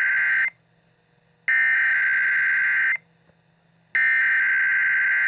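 Emergency Alert System SAME header: bursts of harsh, buzzing digital data tones, each about a second and a half long with a second's gap between them. One burst ends about half a second in, a second runs in full, and a third starts about four seconds in. The header is the machine-readable code that opens an emergency alert.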